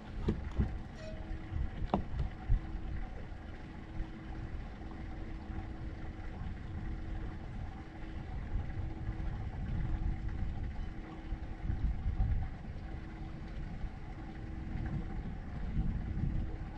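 Bass boat's outboard motor running under way, with wind gusting on the microphone and a few sharp knocks in the first few seconds.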